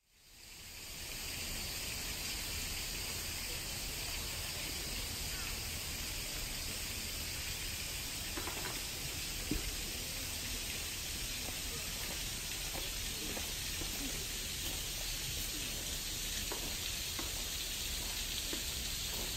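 Outdoor garden ambience: a steady hiss with a low rumble under it and a few faint ticks, fading in from silence over the first second or two.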